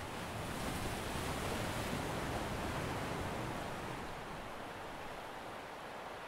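Sea surf washing on the shore: a steady hiss of waves that swells about a second in, then eases off a little.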